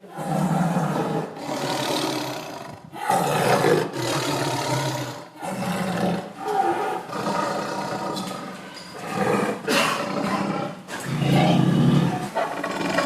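A big cat roaring and growling in a run of calls, each one to two seconds long with short breaks between them. The loudest call comes near the end.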